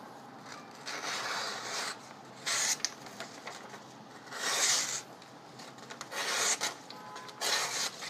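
A stainless-steel fixed-blade knife, a Cold Steel Pendleton Light Hunter, slicing through a hand-held sheet of paper in about five separate strokes, each a short papery swish: a paper-cutting test of the factory edge's sharpness.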